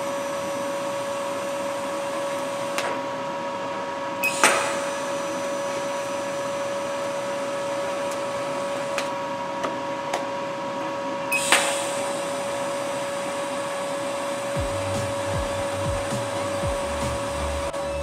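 TIG welding arc on mild steel from a Canaweld TIG DC Pulse inverter welder: a steady hiss and buzz, stopped and restruck twice, each strike starting with a sharp high-frequency-start crackle. Background music with a bass line comes in near the end.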